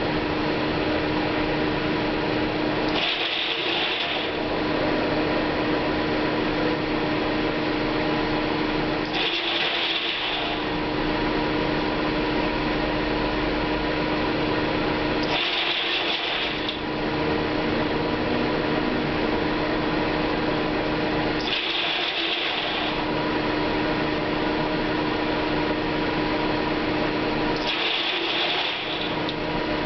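Maize grain dryer running with a steady mechanical hum. About every six seconds a brighter hissing sound comes in for roughly a second while the low rumble briefly drops away, five times in a regular cycle.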